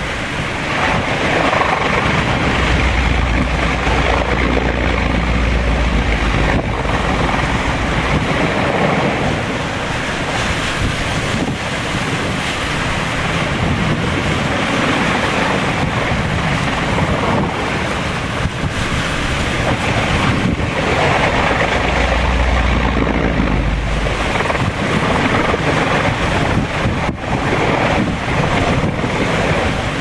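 Hurricane wind gusting hard, rushing through cabbage palm fronds and buffeting the microphone. Two strong gusts rumble on the microphone, one a few seconds in and another past the twenty-second mark.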